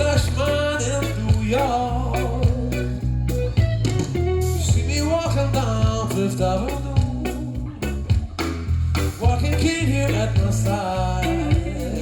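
A song with a singing voice over deep, sustained bass notes and regular drum hits, played back over loudspeakers through a totaldac hi-fi system in a demonstration room.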